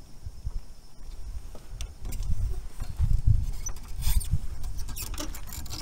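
Rubber wiper refill with its metal backing strip being slid through the metal hooks of a windshield wiper blade: scratchy rubbing and small clicks, more of them about four seconds in, over a low rumble.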